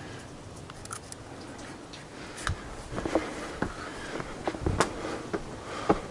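Footsteps climbing stone steps: irregular scuffs, taps and heavier thumps, a few a second, starting about two seconds in.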